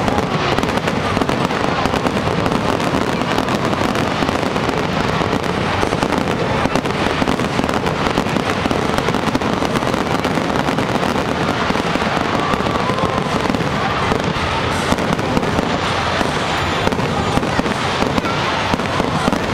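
Fireworks display going off as a dense, continuous string of bangs and crackles at a steady loudness, with no pause.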